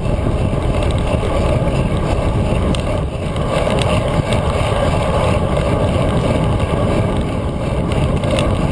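Steady wind rush and road rumble on a bicycle-mounted GoPro's microphone while riding a road bike at speed.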